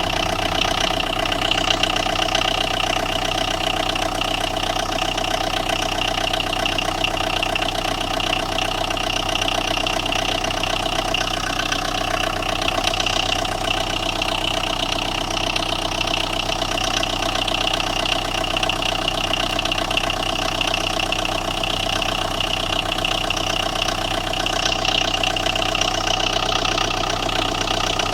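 Tata Indigo diesel engine idling steadily with an even knock. The mechanic puts the knocking down to the engine control module getting no power through a blown fuse.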